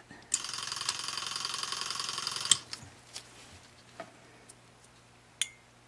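Hu-Friedy Sidekick powered instrument sharpener running for about two seconds with a steady buzz as a universal curette's blade is held flat on its moving stone. It starts and stops with a click, and a few light clicks of steel on the unit follow.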